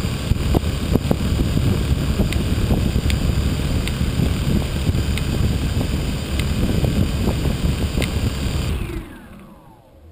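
Quadcopter's electric motors and propellers running steadily while it sits on the ground, with prop wash buffeting the microphone. About nine seconds in the motors cut and spin down in a falling whine.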